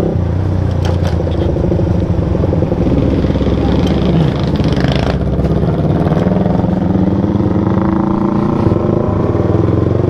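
Suzuki motorcycle's engine running through a loud exhaust while riding, the revs rising and falling.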